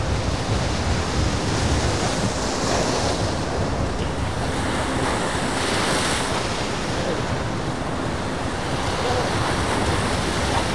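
Ocean surf breaking and washing against the rocks of a jetty, a steady rush that swells about six seconds in, with wind buffeting the microphone.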